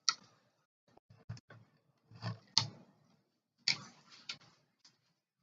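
Irregular metallic clicks and knocks, roughly one a second, from a heavy cable cutter being worked on thick 3/0 gauge copper cable at the start of the cut.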